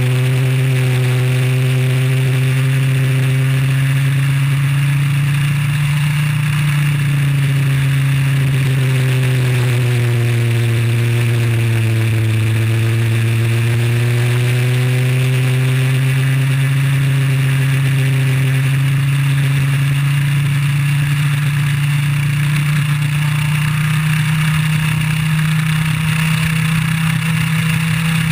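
IAME Leopard 125cc two-stroke kart engine running hard, heard on board. Its pitch sags to its lowest about twelve seconds in as the kart slows for a corner, then climbs steadily as it accelerates back up through the revs.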